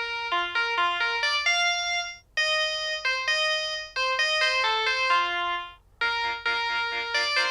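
Samsung SPH-N345 cell phone playing a polyphonic ringtone: a quick synthesized melody of single notes. A brief break comes about two seconds in. After another short break near six seconds, a busier passage of fast repeated notes begins.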